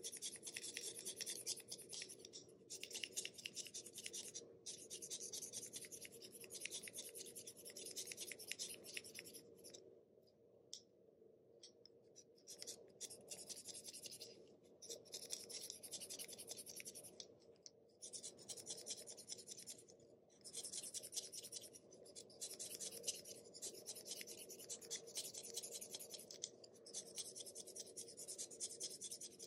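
Utility knife blade shaving the point of a Faber-Castell 9000 HB graphite pencil: runs of quick, fine scraping strokes broken by short pauses, the longest about ten seconds in.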